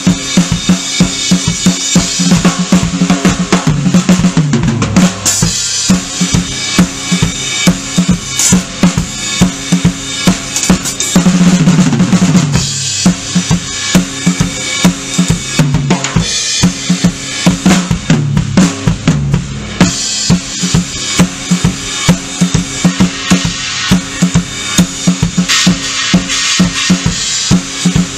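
Acoustic drum kit played in a solo: fast snare and bass-drum strokes under ringing cymbals. About three times the strokes run down in pitch, tom fills from the higher toms to the lowest.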